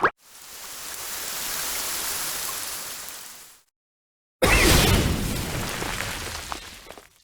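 Two separate stock sound effects. First a hiss swells and fades over about three and a half seconds. Then, after a short silence, a sudden loud noisy burst dies away over nearly three seconds.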